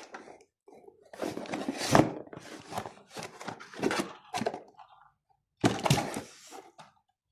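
Handling noises: irregular crunches and knocks as a toy Cybertruck and its packaging are handled, in short bursts with brief pauses.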